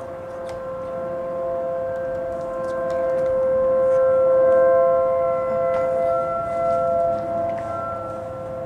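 Outdoor warning sirens sounding a steady alert: several steady tones held together, swelling to loudest around the middle and then easing off.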